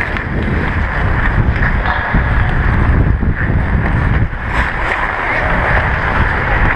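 Wind rushing over a body-worn action camera's microphone as an ice hockey player skates fast, mixed with the scrape of skate blades on the ice.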